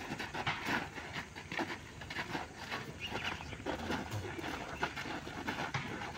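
Many feet shuffling and stepping irregularly on dusty, gravelly ground as a group of workers moves together.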